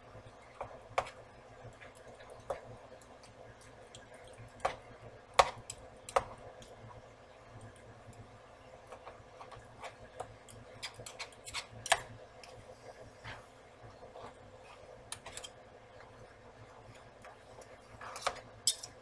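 Cooking utensil tapping and scraping against a nonstick skillet as pieces of sausage are stirred and flipped: irregular light clicks, with a few sharper knocks around five to six seconds in and again at about twelve seconds.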